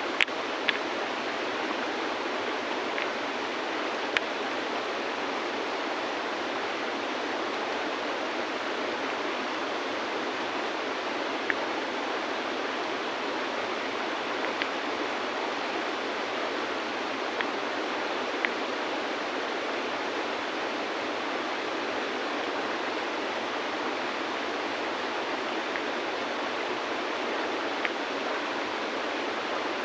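River water flowing steadily over stones, with a few brief sharp clicks of stones tapping together now and then.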